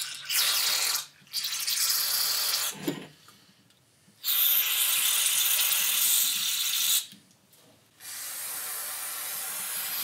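Aerosol carburetor cleaner spraying through a thin extension straw into the ports of a Yamaha golf-cart carburetor, in four hissing bursts separated by short pauses, the longest about three seconds. The cleaner is being forced through the passages to check that they flow clear.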